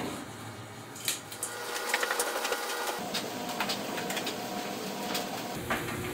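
Steady mechanical whirring with scattered clicks and knocks around a top-loading washing machine as laundry is loaded.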